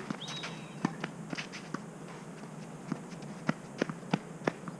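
Tennis rally on a clay court: a string of sharp knocks from racket strokes on the ball and ball bounces, with footsteps on the clay.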